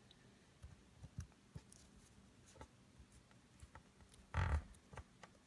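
Faint soft clicks and squishes of fingers pressing Play-Doh into a plastic mould, with one louder dull thump about four and a half seconds in.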